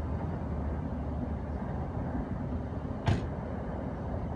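Freight train of empty cars rumbling steadily, with one sharp bang about three seconds in.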